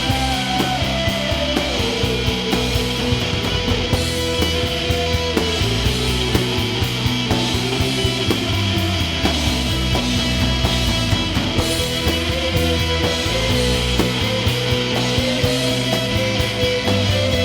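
Rock band playing: drums, bass and guitar keep a steady beat under a sustained melody line that steps and slides in pitch.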